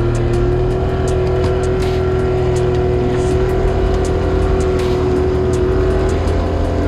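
Yamaha Enduro 60 two-stroke outboard motor running steadily under way, with many short knocks and splashes of the hull on the waves.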